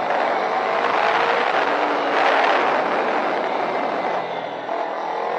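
Motorcycle engine running under varying throttle through turns, with wind rush, picked up by a bike-mounted action camera's microphone. The engine note rises and falls, is loudest about halfway through, and drops briefly near the end.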